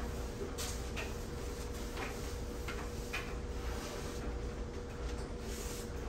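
Low steady room hum with soft, irregular clicks, roughly one or two a second.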